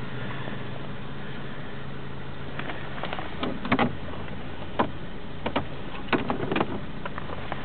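Opel Ascona's engine running steadily, heard from inside the cabin, while the plastic glovebox is opened and rummaged: a series of sharp clicks and knocks from the latch and lid from about three seconds in.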